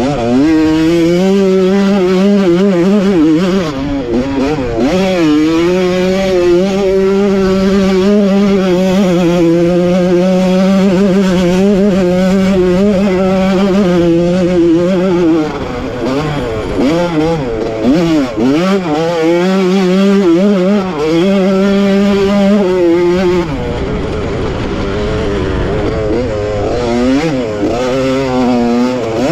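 1985 Honda CR125's single-cylinder two-stroke engine at racing pace, held at high revs for long stretches, with the throttle shut and blipped back up in quick falling and rising sweeps, longest a little past halfway and near the end.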